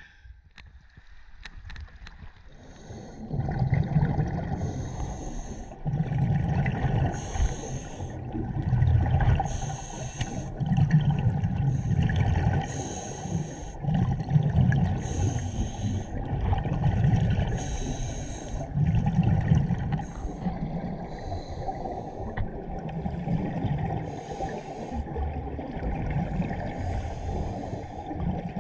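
Scuba diver breathing through a regulator underwater, starting about three seconds in. A hiss on each breath in alternates with a low rumble of exhaust bubbles on each breath out, repeating about every two to three seconds.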